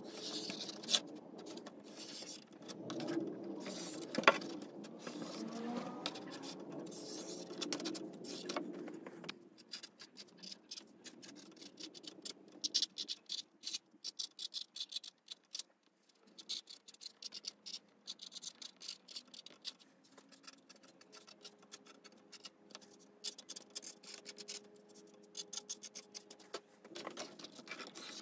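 Felt-tip marker drawing lines and writing on cardboard: short scratchy strokes with occasional clicks and taps.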